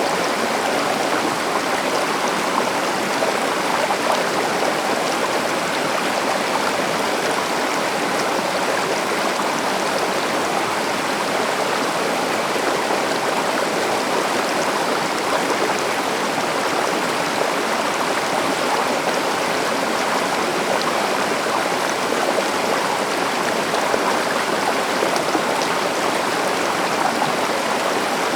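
Steady rush of a flowing river or stream over rocks, an even, unbroken water sound.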